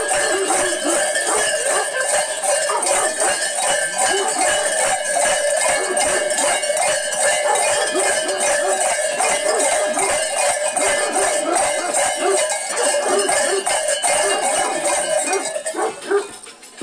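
Large metal animal bells on a sheepskin mummer's costume, clanging rapidly and without a break as the wearer shakes and dances. The clanging falls away shortly before the end.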